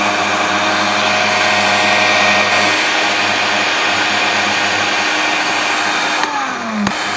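Electric kitchen blender running at full speed, chopping kencur root in water: a steady motor whine over the churning of the liquid. Near the end the motor's pitch dips briefly and a click follows, then it runs on.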